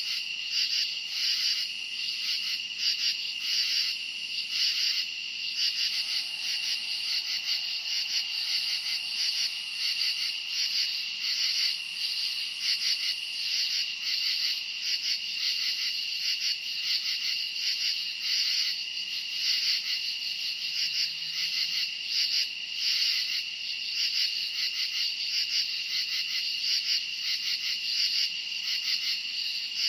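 A dense chorus of crickets chirping on and on, a high-pitched pulsing trill that never pauses.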